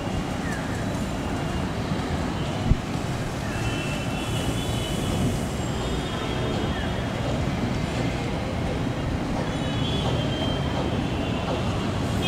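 Steady low rumble of a distant Air India Boeing 777's jet engines as it taxis, blended with city traffic noise. A single sharp thump sounds a little under three seconds in.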